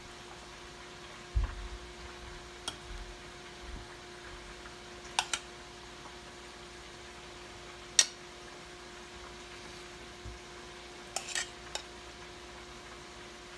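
Scattered clinks and light knocks of a utensil against a metal pot and a ceramic plate as sauced chicken wings are lifted out and set down, the sharpest clink about eight seconds in. A steady faint hum runs underneath.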